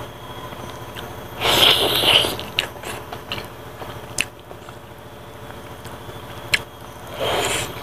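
Close-up eating sounds: biting into and chewing a braised pig trotter with rice. The loudest bite comes about a second and a half in and another near the end, with small mouth clicks between.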